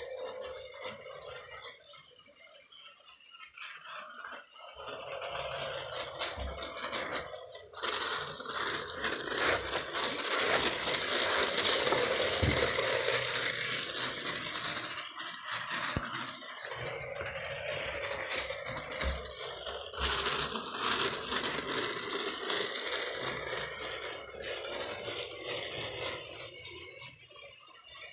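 Lego Winter Holiday Train 10254 running on plastic track: its electric motor whirring and its wheels rattling over the rails. It gets suddenly louder about a quarter of the way in and stays loudest for several seconds while it is close by.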